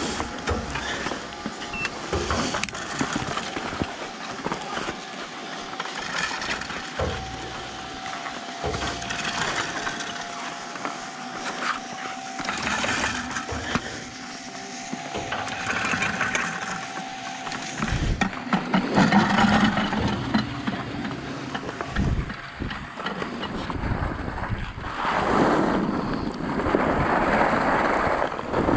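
At a chairlift's top station, a steady machine whine sounds for a while. About two-thirds of the way through it gives way to skis sliding over packed snow, with wind rushing over the microphone, growing louder and gustier near the end.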